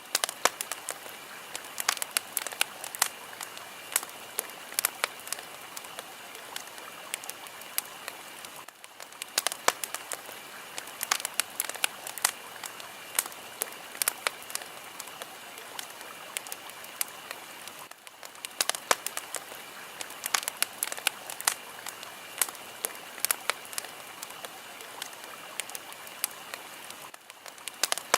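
Fire crackling: sharp pops and snaps over a steady hiss, with a brief lull about every nine seconds.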